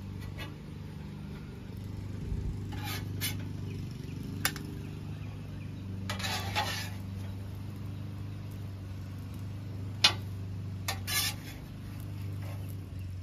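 Metal spatula scraping and clinking on a steel flat-top griddle and against a bowl as fried rice is scooped up: several short sharp clicks, the loudest about ten seconds in, and one longer scrape around six seconds in, over a steady low hum.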